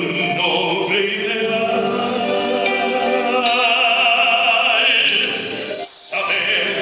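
A man singing a song into a microphone over a musical accompaniment, holding long notes with vibrato, with a short break about six seconds in.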